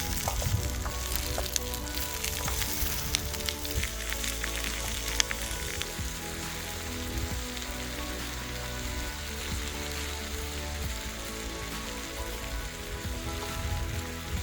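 Food frying in olive oil with a steady sizzle, and sharp pops scattered through the first five seconds or so.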